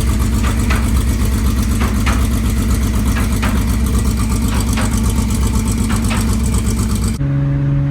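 BMW M54 straight-six engine idling loudly through a side-exit exhaust, with a fast, rough pulsing. Near the end it cuts abruptly to a smoother, steadier engine drone.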